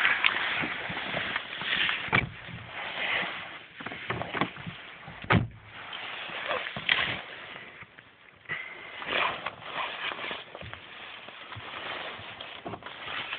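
Audi A4 1.9 TDI four-cylinder unit-injector diesel (AVF) running from inside the cabin soon after a cold start following a night below −30 °C, as an uneven noisy clatter. Several sharp knocks stand out, the loudest about five seconds in.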